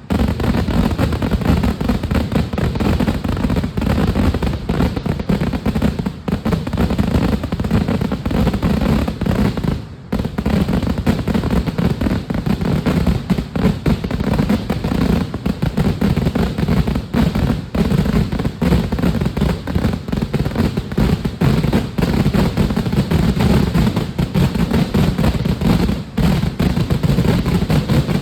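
Kerala temple fireworks (vedikkettu): a dense, continuous barrage of firecracker explosions going off in rapid succession. It slackens briefly about ten seconds in, then picks up again.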